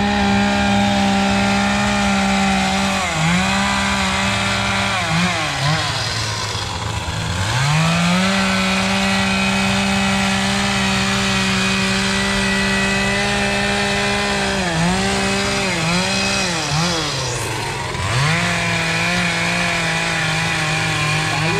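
Gas chainsaw used for wood carving, running at high revs. The revs sag and climb back several times, with two deeper drops, about a third of the way in and again near the end.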